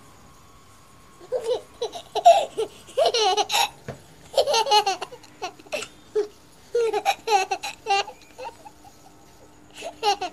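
A baby laughing and babbling in short high-pitched bursts, starting about a second in.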